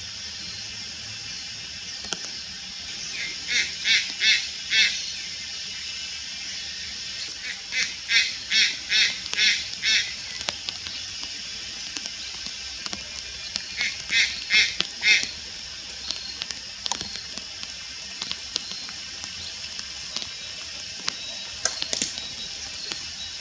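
Juvenile Malayan night heron calling in three bouts of rapid, repeated honking notes, about five or six notes per bout at roughly two to three notes a second. A steady high-pitched hiss runs underneath.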